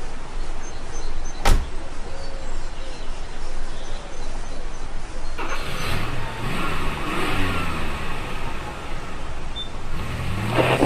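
A car door shuts with one sharp thud about a second and a half in. From about halfway a car engine runs and revs, its pitch sliding down and up, rising again near the end.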